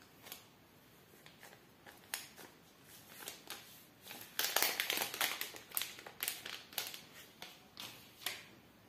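Clear plastic protective sleeve crinkling as it is slid off a smartphone, with scattered light clicks and taps of handling. The crinkling is thickest and loudest about four and a half seconds in, then thins out into separate crackles.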